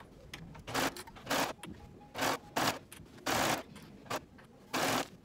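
Serger (overlock machine) run in a series of short bursts, each a fraction of a second long, as the knit fabric is fed in to serge the underarm seam.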